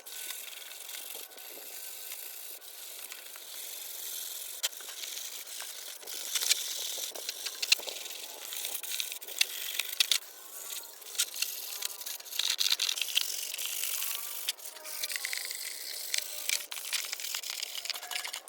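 Irregular scraping, rubbing and sharp clicks and rattles of hand work on motorcycle parts.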